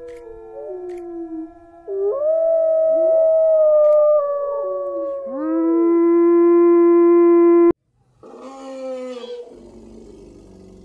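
A chorus of canid howls: several long calls overlap, each holding a pitch or gliding slowly up and down. They cut off suddenly about three-quarters of the way in. A shorter, rougher call follows and fades near the end.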